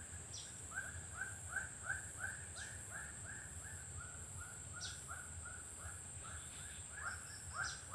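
A bird calling a long, even run of short arched notes, about three a second, with a few brief higher chirps between them, over a steady high hiss.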